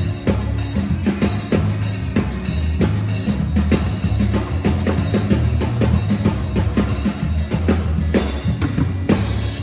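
Music with a steady drum-kit beat over a bass line.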